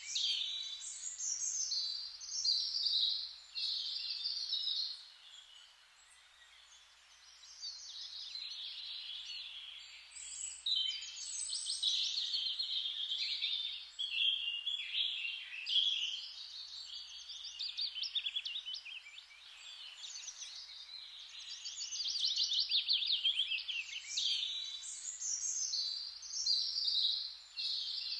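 Songbirds singing, high-pitched, in fast trilled phrases that come and go every second or two. There is a lull about five to seven seconds in, over a faint steady hiss.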